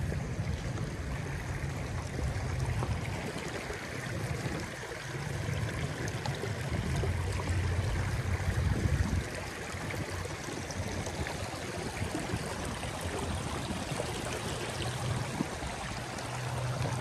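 Shallow creek water running steadily over rocks in a riffle, with a low rumble that comes and goes.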